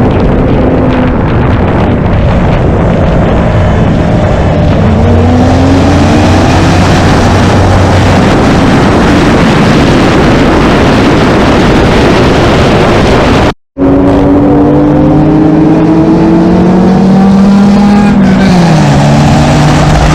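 Loud car engine noise: several engine notes holding steady and gliding up and down in pitch over heavy rushing noise, with the sound dropping out for an instant about fourteen seconds in.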